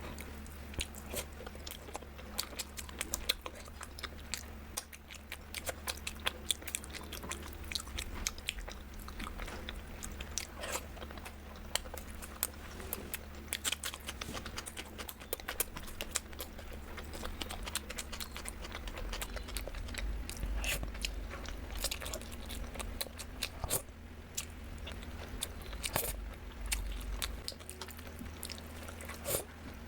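Close-miked eating: a quick, uneven run of crisp crunches and bites with chewing, over a steady low hum.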